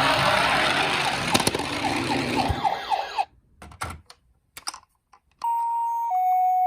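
Toy ambulance minicar: a loud rattling, hissing run with a fast wavering siren in it for about three seconds, then a few light clicks and a short silence. About five seconds in, a Japanese-style hi-lo two-tone ambulance siren (pee-po) starts, alternating a higher and a lower note.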